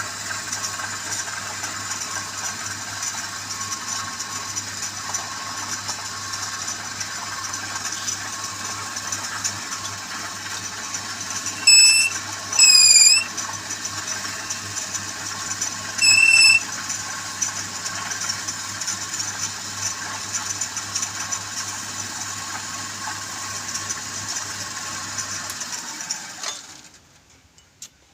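Wood lathe running steadily with a low motor hum and the hiss of the work spinning, switched off about 26 seconds in, its pitch sinking as it winds down to a stop. Three short, loud high tones cut in about 12, 13 and 16 seconds in.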